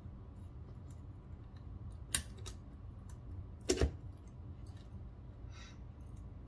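Small metal parts of a Benchmade Mini Bugout pocketknife clicking against each other as it is reassembled by hand: a sharp click about two seconds in and a louder double click near four seconds, with faint ticks between, over a low background hum.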